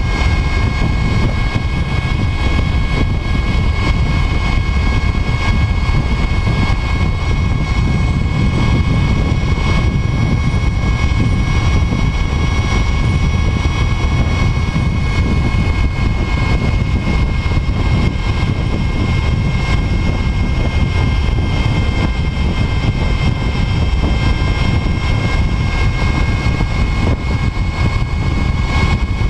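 Brammo Empulse R electric motorcycle cruising at a steady highway speed of about 64 mph in fourth gear: the electric motor and drivetrain give a steady high whine of several held tones over heavy wind rush and road rumble on the microphone.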